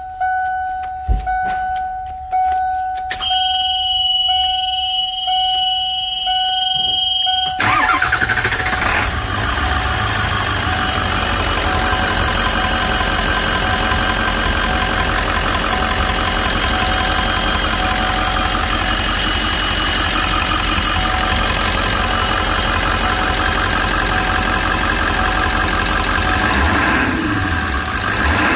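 A vehicle warning chime dings about once a second and is joined a few seconds in by a steady high tone. About seven and a half seconds in, the Ford 7.3 Powerstroke turbo-diesel V8 starts quickly and settles into a steady idle.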